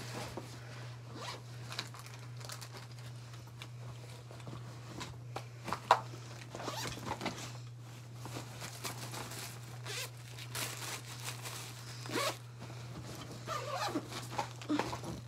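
Zippers on a quilted fabric backpack being pulled open and shut in short strokes, with rustling as things are moved in and out of it, over a steady low hum.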